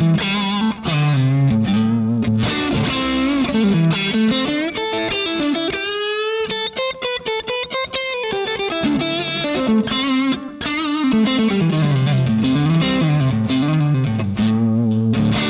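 Fender Stratocaster electric guitar played through a Line 6 Helix preset modelled on an EF86-preamp amp, set to a light bluesy overdrive. It plays a lead line of single notes, with a long bent note and wide vibrato around the middle.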